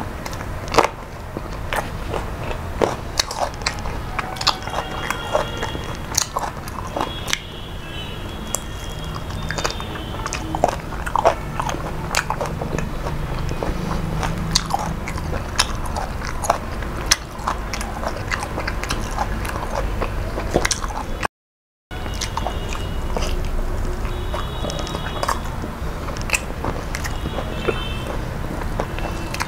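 Close-miked eating sounds of a person chewing chicken and rice by hand: wet chewing and biting with many short mouth clicks. The sound cuts out for about half a second roughly two-thirds of the way through.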